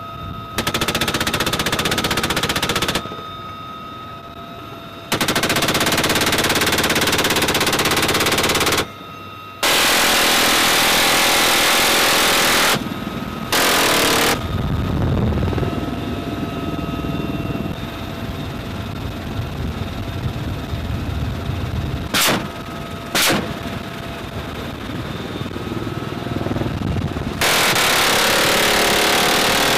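Helicopter door gun, a machine gun or minigun on a UH-1Y Venom, firing several long sustained bursts of a few seconds each, with two very short bursts in the middle. In the gaps the helicopter's steady turbine whine carries on.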